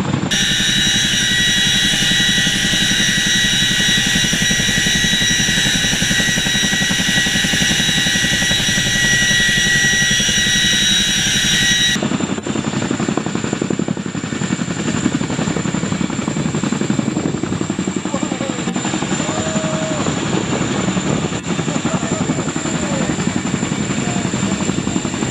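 CH-47 Chinook tandem-rotor helicopter with twin turboshaft engines hovering low, its turbine whine high and steady over the beat of the rotors. About halfway through, an abrupt cut drops the whine away, leaving the rotor beat and a rushing noise.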